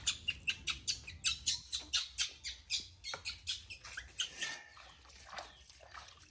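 Baby monkey giving short, sharp squeaks in quick succession, about four or five a second, while being bathed, easing off after about four seconds.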